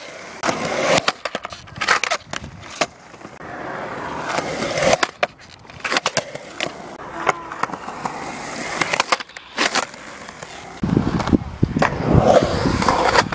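Skateboard on concrete: wheels rolling with a hissing rumble, broken by a series of sharp clacks and slaps as the board is popped and lands. A louder, deeper rumble sets in near the end.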